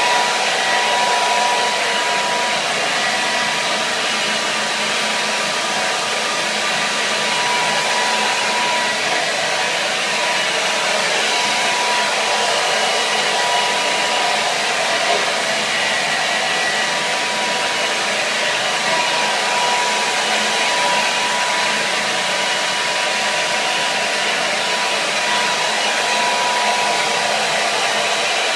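Hair dryer running continuously at one setting: an even rush of blown air with a thin, steady motor whine over it.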